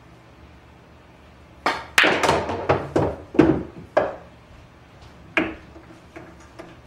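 Pool balls clacking against each other and the table in a quick run of about eight sharp knocks, then two faint ones.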